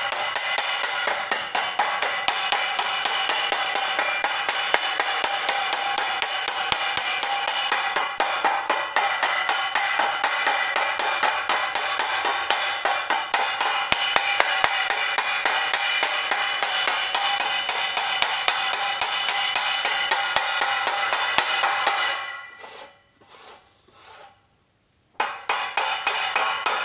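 Background music with a steady percussive beat and cymbals, which drops out for about three seconds near the end before coming back.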